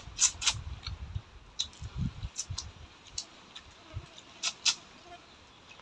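Scattered small clicks and smacks of people eating by hand from plastic plates, about a dozen in all, with a low rumble during the first two seconds or so.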